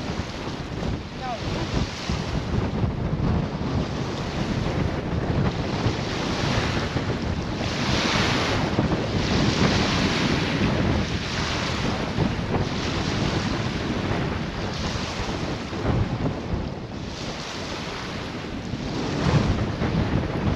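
Strong wind buffeting a camera's built-in microphone in gusts, a rushing, rumbling noise that swells and eases, loudest about halfway through and again near the end.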